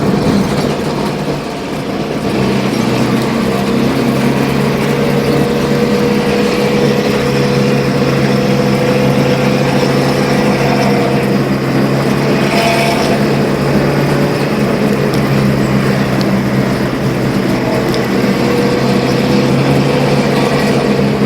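Diesel bus engine and exhaust running hard at a steady speed, giving a deep rumbling, snoring ('ngorok') exhaust note at an even pitch. The note dips briefly about two seconds in, and a short rushing noise passes about halfway through.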